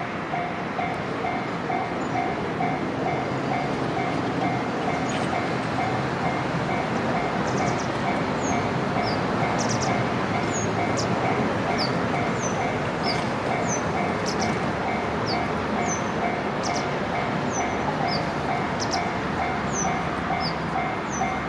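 Japanese railway level-crossing alarm ringing, a rapid, evenly repeating electronic ding, over the steady noise of a train running through the crossing. Small birds chirp again and again from about seven seconds in.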